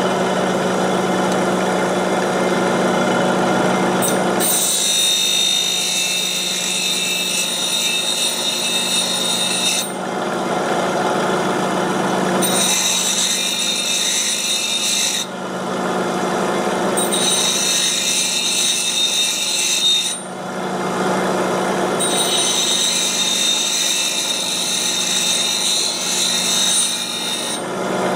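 Bench grinder with a CBN wheel running steadily while a steel lathe cutter is pressed against it in four passes of a few seconds each. Each pass is a loud, high grinding hiss over the motor's steady running.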